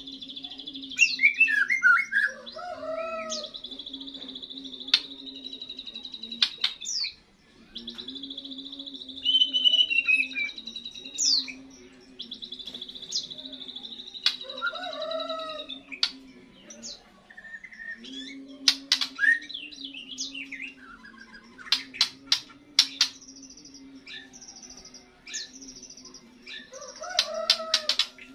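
A young white-rumped shama (murai batu) singing its first song after its moult. High, fast trills are held for a few seconds at a time, mixed with falling whistled phrases, and runs of sharp clicking notes come in the second half, all over a steady low hum.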